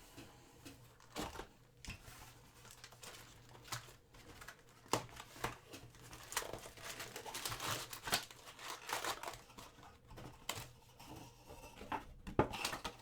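Trading-card box and pack wrappers being torn open and handled: crinkling plastic and tearing, with scattered sharp clicks and rustles.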